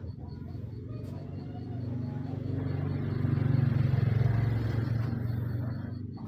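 Low engine rumble of a passing road vehicle, building to its loudest about four seconds in and then fading away.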